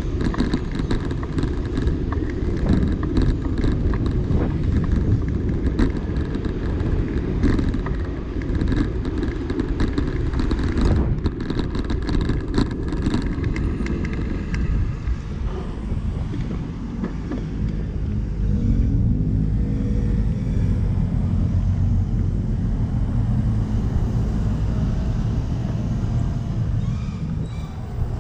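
City street traffic heard from a moving bicycle: a steady low rumble of passing cars and road noise, with a bus passing close by near the end.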